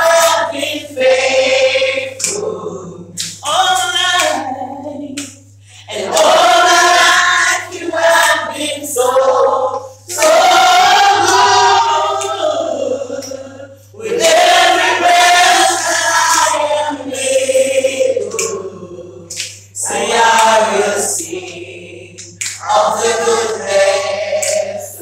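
A group of women singing a gospel worship song together, unaccompanied, in long phrases with short breaths between them. A steady low hum runs underneath.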